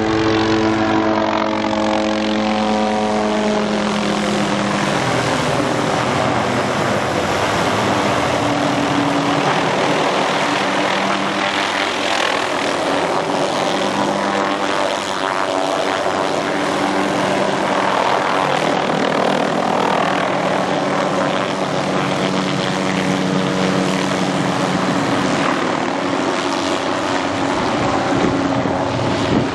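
MD 500 light helicopter flying with an underslung lime-spreader bucket: rotor and turbine running loudly, the pitch falling over the first few seconds as it passes, then holding steady.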